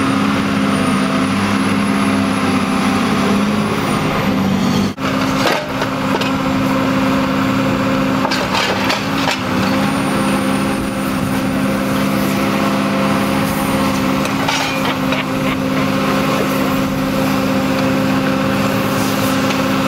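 Scrap-handling machine with a lifting electromagnet running steadily: a loud, even drone of engine and hydraulics, with a few clanks of scrap metal as the magnet carries its load.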